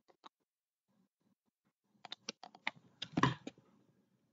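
Light clicks and taps of a stylus writing on a tablet: a couple of faint ticks at the start, then a quick cluster of taps about two seconds in, with one louder knock among them.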